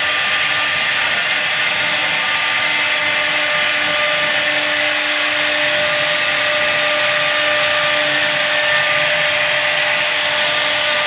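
CNC router spindle running steadily as it carves a wood design, a constant high-pitched whine with no pauses.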